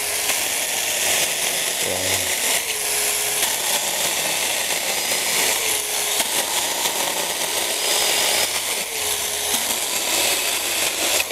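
Brushless cordless mini chainsaw with a 4-inch bar running at full speed and cutting steadily through a 7 cm branch. The chain rasps through the wood, with a faint motor hum that comes and goes.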